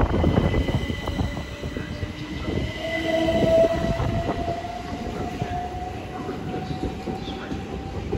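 Southern Class 377 Electrostar electric multiple unit pulling out and accelerating away, its traction motors giving a slowly rising whine over the low rumble and clatter of its wheels on the rails.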